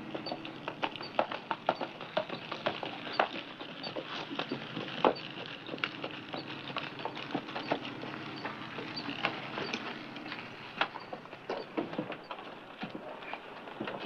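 A horse walking, its hooves clopping unevenly on hard ground, a string of irregular knocks with no steady beat.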